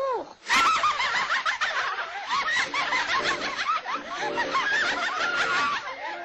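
Cartoon squirrels chattering and snickering in high, squeaky voices, a fast run of rising and falling chirps.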